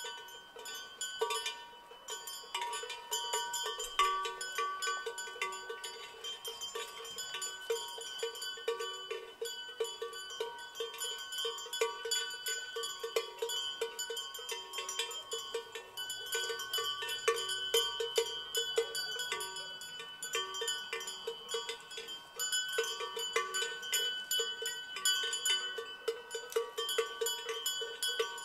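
Many bells on grazing livestock clanking irregularly and without pause, several bells of different pitch ringing over one another.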